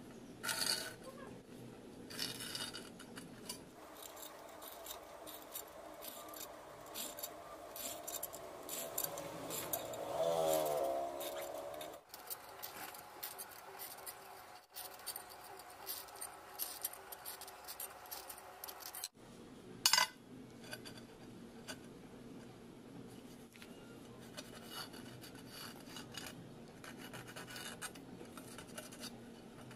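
Hand metalworking sounds: irregular rubbing and scraping strokes on steel, with a brief wavering squeal a little before the middle. Several abrupt cuts interrupt the sound, and a sharp click comes about two-thirds of the way through.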